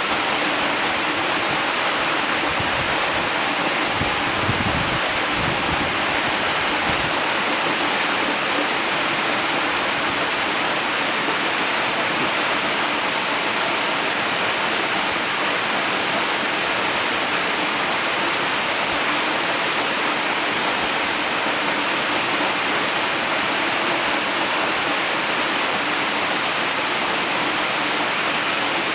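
Waterfall: a steady, unbroken rush of falling water, with a little extra low rumble a few seconds in.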